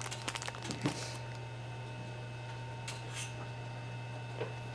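Steady low electrical hum with a faint high whine above it, and a few light clicks and taps, most of them in the first second.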